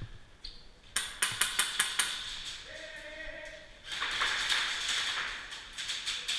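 A quick string of about seven sharp airsoft gun shots, about a second in, followed by a voice and a stretch of noise.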